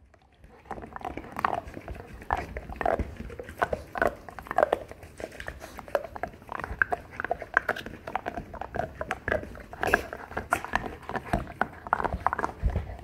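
Golden retriever chewing a spiky toothbrush chew toy filled with doggy toothpaste: a dense, irregular run of crunches and clicks of teeth on the toy, starting about half a second in.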